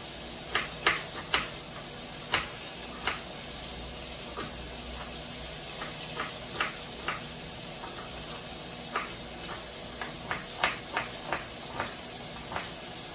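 Kitchen knife chopping a red onion on a plastic cutting board: sharp, irregular knocks of the blade on the board, coming in short runs. Under them, a steady faint sizzle of food frying in a wok.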